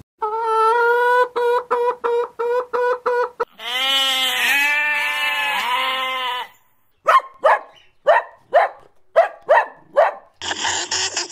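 A hen calls with a held note and then clucks about three times a second. A sheep follows with one long, wavering bleat. Then a puppy gives about nine short, high yelps that fall in pitch, and a scratchier, noisier sound starts just before the end.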